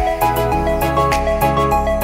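Background music with a steady beat and a bright melody.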